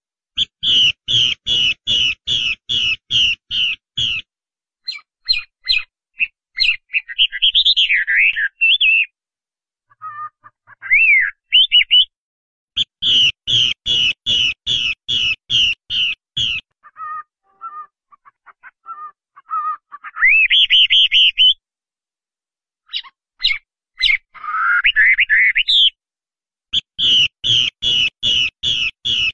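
Chinese hwamei (laughingthrush) singing: fast runs of loud repeated whistled notes, about three a second, alternating with varied rising and falling whistles and short pauses. The repeated-note run comes back three times.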